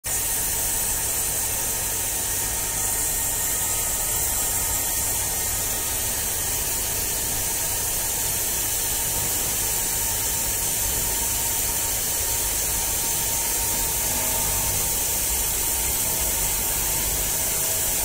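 CNC vertical machining centre milling a key-hole profile in a metal plate with an end mill under coolant: a steady, loud hissing machining noise with a faint steady whine.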